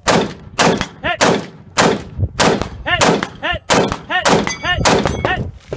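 Rapid-fire gunshots, about ten in a steady string roughly half a second apart. Each shot is followed by a ringing note from a steel plate target being hit.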